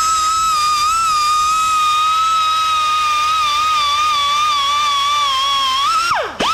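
Handheld die grinder running with a steady high-pitched whine, its pitch wavering slightly as the bit works the aluminium intake opening. Just after six seconds the whine falls away sharply for a moment, then comes straight back up to speed.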